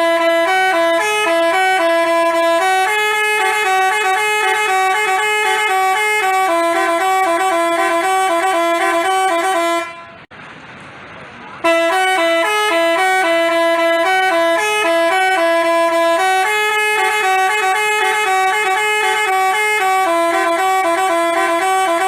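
Telolet basuri multi-tone bus horn playing a melody of quick stepped notes. The tune breaks off about ten seconds in, leaving a faint hiss for under two seconds, then starts again.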